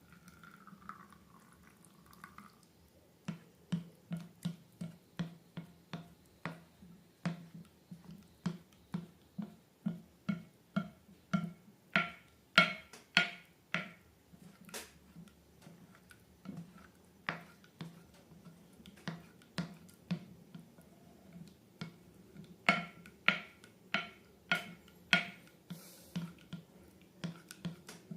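Slime being mixed and worked, with a sticky click or squelch about twice a second; the strokes get louder around the middle and again near the end.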